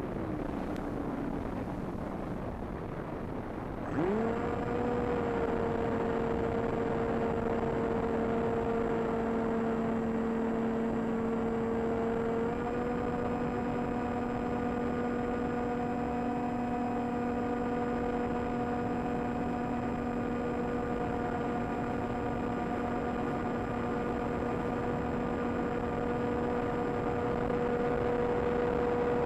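Electric motor and propeller of an AXN Floater Jet RC plane, heard from on board. It winds down in the first second, leaving wind hiss. About four seconds in it spins up abruptly to a steady hum under throttle, stepping slightly higher partway through.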